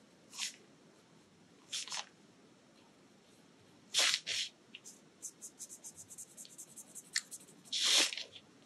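Fine-tip pen scratching on paper, faint. A few separate strokes come first, then a quick run of short strokes about five a second as small triangles are filled in black, and a longer stroke near the end.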